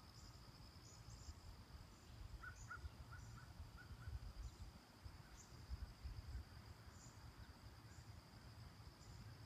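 Faint outdoor ambience: insects trilling steadily on one high pitch, with short chirps repeating above it and a brief run of quick notes about two to four seconds in, over a low rumble.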